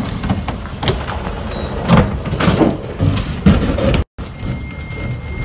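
A semi-trailer dragging its wheels over a concrete curb and through shrubs, heard as rough scraping and crunching with irregular knocks over the truck's running noise. The sound drops out for a moment about four seconds in.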